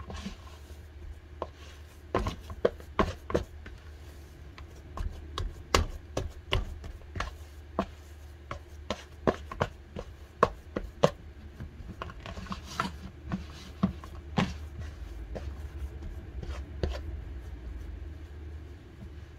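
A hand kneading soft pumpkin and glutinous-rice-flour dough in a plastic bowl, making irregular knocks and pats as the dough is pressed and slapped against the bowl. The sounds thin out near the end, over a steady low hum.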